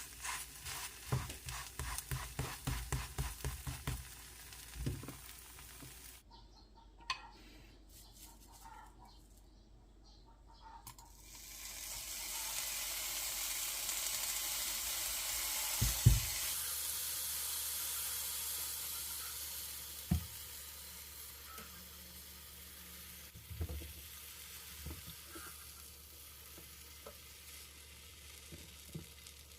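Batter frying in oil in a pan: a sizzling hiss that swells for several seconds midway and stops abruptly. Around it are utensil taps and knocks, with a quick run of taps near the start.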